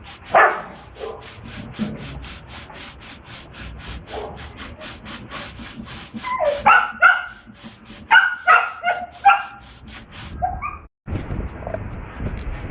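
A dog barking in short bursts, a few at a time, with a fast, even ticking under it, about five ticks a second. Near the end the sound breaks off and a steady rushing noise follows.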